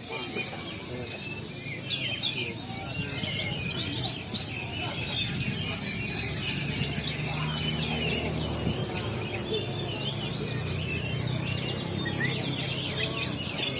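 Many competing songbirds singing at once, a dense, unbroken chorus of fast overlapping high chirps and trills, over a low steady hum of crowd murmur.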